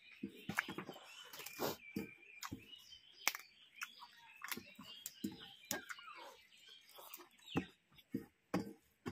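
Close-miked eating: chewing and crunching papad and rice, with wet mouth smacks and many sharp irregular clicks.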